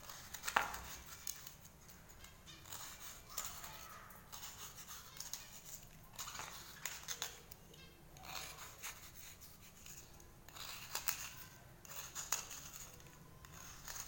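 Knife blade scraping a cuttlefish bone, rasping off chalky flakes in short, irregular strokes with occasional sharper clicks.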